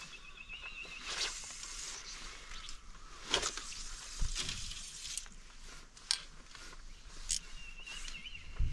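Fly line and rod swishing through the air during casting, with short sharp handling sounds as the line is shot and stripped, over a steady soft outdoor hiss. A thin wavering high tone sounds briefly near the start and again near the end.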